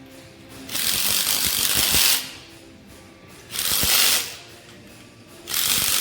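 Hand ratchet clicking in three bursts, running down the Allen head screws that hold a fifth wheel's new cushion ring.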